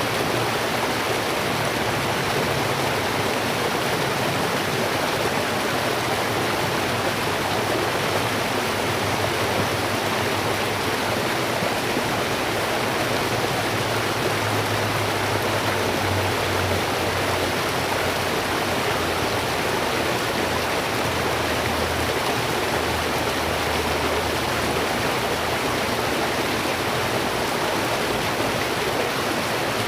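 Steady rushing of flowing water from a stream or river.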